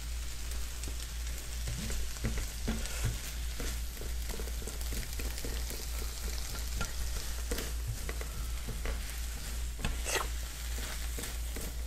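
Brussels sprouts, red pepper and onion sizzling steadily in a hot wok while a silicone spatula stirs them, with light scraping ticks against the pan.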